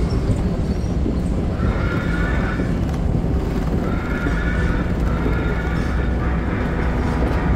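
Boardwalk tram running: a steady low rumble from the tram as it rolls over the wooden planks, with a high wavering tone that comes and goes four times.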